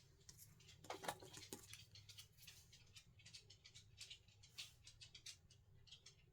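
Faint, quick light clicks and rustles of small craft materials being handled at a work table, busiest about a second in.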